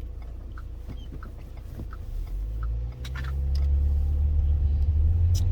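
Low, steady rumble of a car on the move, heard from inside, growing louder about halfway through.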